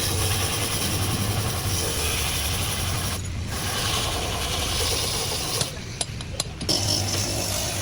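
Continuous rough mechanical noise over a low hum. It drops away briefly about three seconds in and again near six seconds, where a few sharp clicks stand out.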